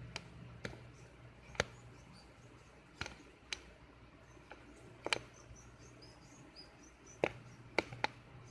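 Scattered sharp clicks and knocks against a plastic tub, about nine in all, as a horned frog struggles to swallow a live mouse, with faint short high squeaks from the mouse in the middle.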